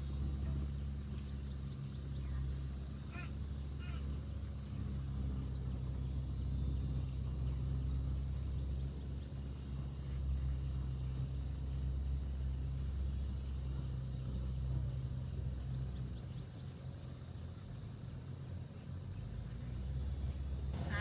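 Insects droning steadily in a high, even whine over a steady low hum.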